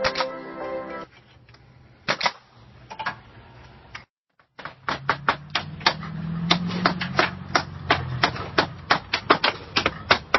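Nails being driven into siding in quick succession, about four sharp strikes a second, starting about five seconds in.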